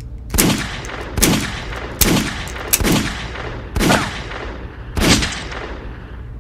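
Six gunshots fired one at a time at uneven gaps of about a second.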